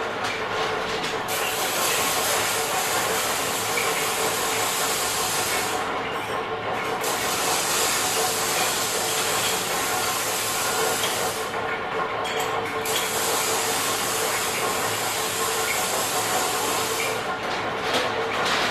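Small metal workshop ambience: steady machinery noise and hiss over a constant hum. The high hiss briefly drops away twice.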